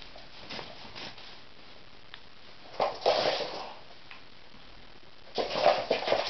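Bengal cat pouncing on a tinsel-and-feather wand toy on a laminate floor: two short bursts of scuffling and rustling, about three seconds in and again near the end, with a few faint ticks between.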